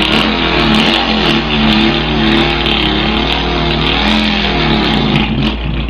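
A man imitating a car engine with his mouth: a continuous buzzing, rasping engine note whose pitch wavers slowly up and down, then sags near the end as the imitated engine stalls.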